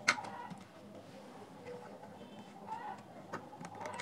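Metal tweezers clicking and tapping against the small connectors and plastic housing of a Bluetooth speaker being taken apart: one sharp click at the very start, then a few fainter clicks and light handling noise.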